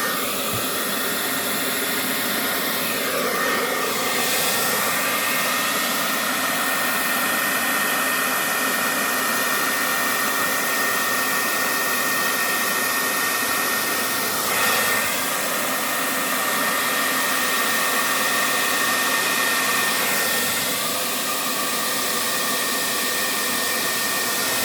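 Handheld electric blower running steadily with a rushing airflow and a thin steady whine, used to blow out freshly poured acrylic paint. Its sound shifts briefly a few seconds in and about halfway through.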